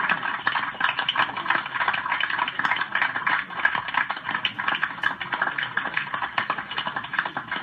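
Fast, dense clattering of rifles being slapped, spun and passed from hand to hand in a drill, many sharp clacks running close together without a break.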